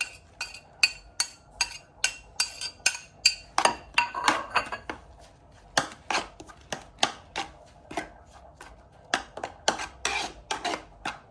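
Citrus peel being grated on a metal hand grater: a run of quick, short rasping strokes, about three a second, with a couple of brief pauses.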